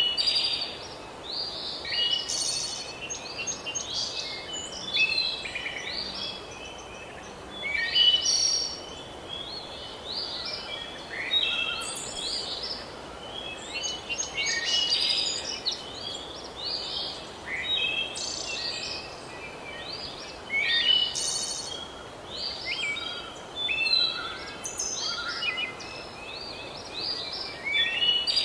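Birds singing, with short, varied chirping phrases coming every second or so, some overlapping, over a steady background hiss.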